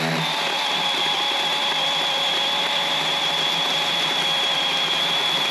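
Sawmill engine running steadily, with a constant high whine over it.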